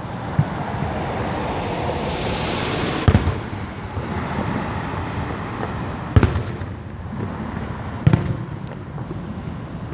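Aerial fireworks bursting: four sharp booms a couple of seconds apart, with a crackling hiss about two to three seconds in, over a steady background noise.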